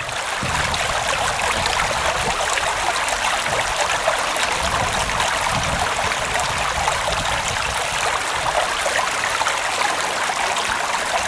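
Small stream running over stones: a steady babble and splash of shallow flowing water.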